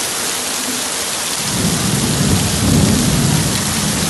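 Heavy rain and floodwater rushing down a street, a steady hiss; about a second and a half in, a low rumble of thunder comes in and swells.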